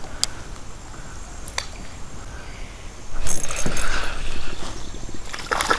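Rod and spinning-reel handling noise as a hooked fish is reeled in: two sharp clicks in the first two seconds, then a louder, noisier stretch lasting nearly two seconds from about three seconds in.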